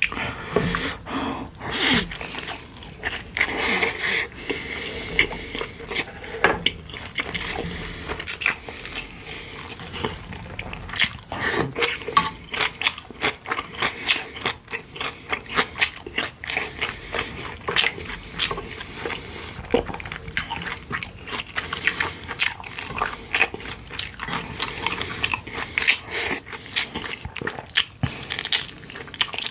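Close-miked eating sounds: steady chewing and biting with frequent crunches and wet mouth clicks, from a meal of pork-bone soup with kimchi and radish side dishes.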